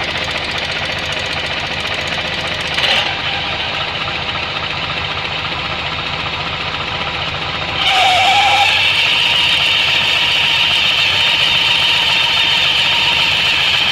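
Suzuki Burgman 650 scooter engine and open CVT variator running, the drive belt turning with a rapid clattering tick. About eight seconds in the sound grows louder and a high whistle sets in and holds: the unexplained variator whistle being hunted down.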